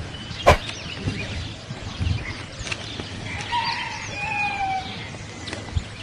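Outdoor birdsong: small birds chirping throughout, with a sharp click about half a second in. From about three and a half seconds in there is a longer call in two parts, falling at the end.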